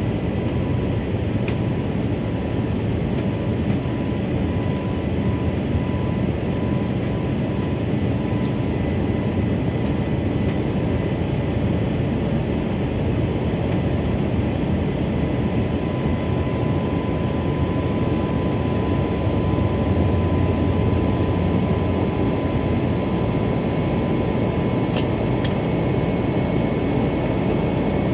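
Steady engine and airflow noise inside the cabin of an Airbus A321neo climbing after takeoff, its Pratt & Whitney PW1100G geared turbofans running at climb power. A thin steady whine sits over the dense rushing noise.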